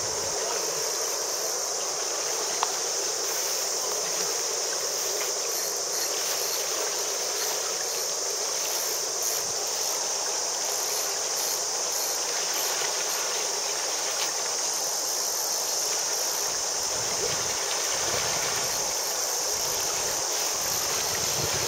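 Steady high-pitched chorus of insects over the rush of a flowing river.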